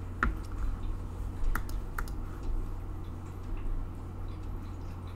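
Three sharp clicks of a computer mouse over a low steady hum.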